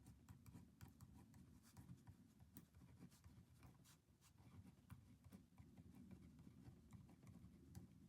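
Faint writing on paper: irregular small scratches and taps from a pen, over a low steady hum.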